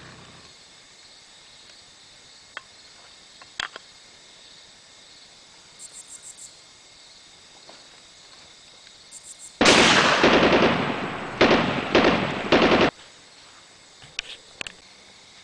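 Loud gunfire: one long burst about two-thirds of the way through that fades over a second or so, then three shorter bursts in quick succession that cut off abruptly. A few faint clicks and ticks come before it.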